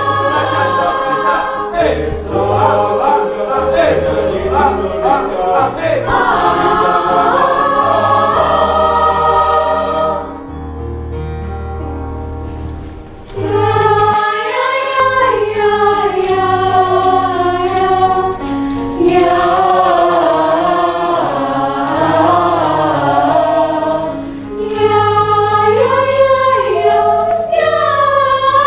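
Mixed choir of women and men singing in parts. Partway through, the singing drops to a soft, quieter passage for about three seconds before coming back at full strength.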